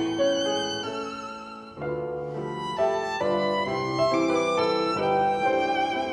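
Violin and piano playing a classical sonata: the violin holds singing notes with vibrato over piano chords. The music fades briefly just under two seconds in, then both come back in.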